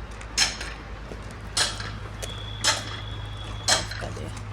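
Sharp metallic clinks, regular at about one a second, over the steady low hum of an engine running.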